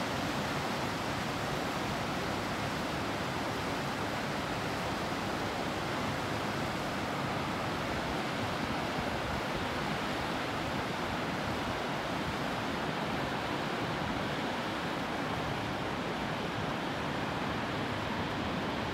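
Waterfall and river rapids rushing: a steady, unbroken roar of white water.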